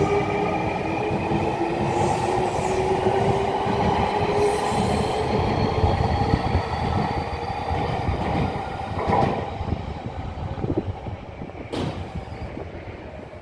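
Nankai electric train pulling out: its traction motors whine in several tones that rise in pitch as it accelerates, over the rumble of its wheels. The rumble then fades as it draws away, with a couple of sharp clicks near the end.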